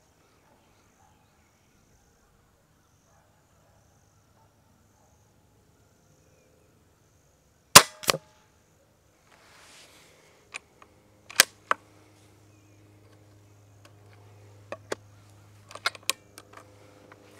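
A Hatsan Flash Pup .22 PCP air rifle fires one shot about eight seconds in. The shot is a single sharp report, followed about a third of a second later by a second, smaller snap. Later come several short, sharp metallic clicks as the rifle's action is worked to load the next pellet.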